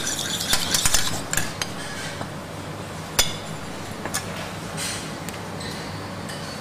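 Metal spoon beating egg in a small stainless-steel saucepan, a rapid run of clinks against the pan that stops about a second and a half in. A few single, spaced clinks follow.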